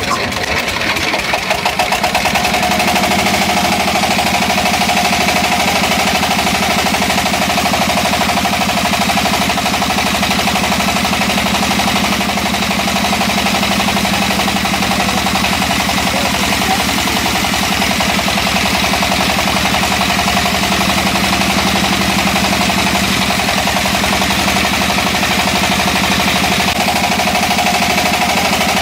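A small motor starts up about two seconds in and then runs steadily with a fast, even pulsing.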